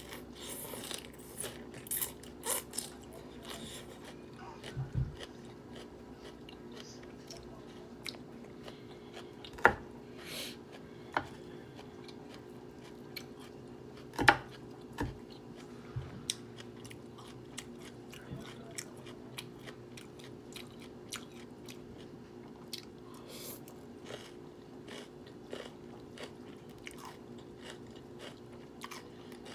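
Close-miked chewing and biting of food: a steady run of small crunchy and wet mouth clicks, with two sharper, louder clicks about ten and fourteen seconds in.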